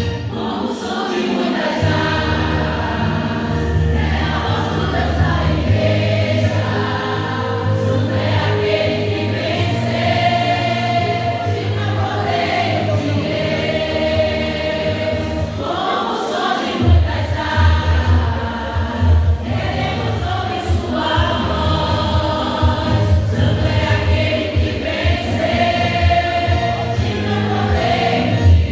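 Choir singing a gospel hymn over instrumental backing with a bass line.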